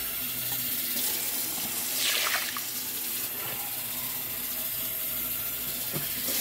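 Water running steadily into a plastic mixing bowl of uncooked rice, filling it for cooking.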